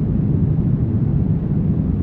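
Brown noise: a steady, deep hiss with most of its weight in the low rumble and little in the highs.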